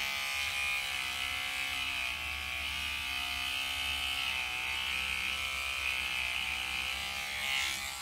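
Electric toothbrush buzzing steadily, its back pressed lightly against the back of a flower so the vibration shakes the pollen loose: hand buzz-pollination. The buzz stops near the end.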